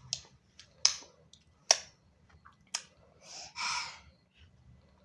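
Four sharp mouth clicks spread out about a second apart, then a short breathy exhale a little past the middle.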